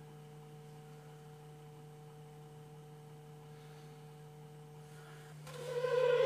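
Faint steady hum holding a few level tones. About five seconds in, music with long held notes swells up and grows loud.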